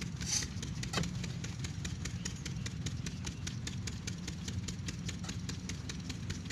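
Old 8 hp Kirloskar single-cylinder diesel engine running with a rapid, even beat, a flame held at its air intake to help it through a cold start.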